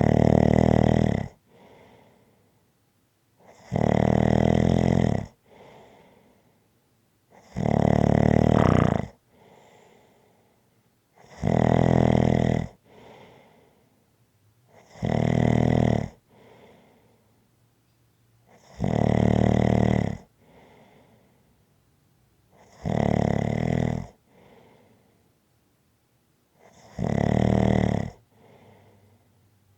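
Snoring at an even pace: eight loud snores, one about every four seconds, each lasting over a second, with a faint, softer breath after each.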